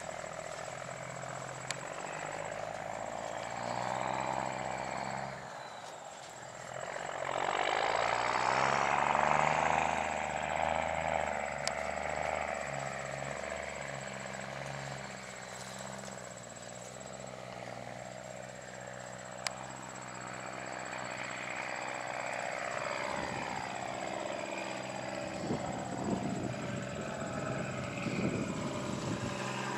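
Diesel engines of large harvest machinery running steadily, the pitch shifting as machines move past, loudest about a third of the way through.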